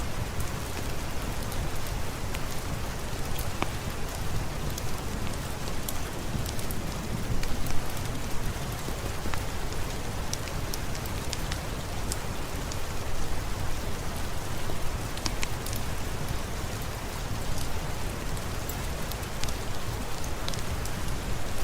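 Steady rain falling on a surface: an even hiss over a low rumble, with scattered sharp ticks throughout.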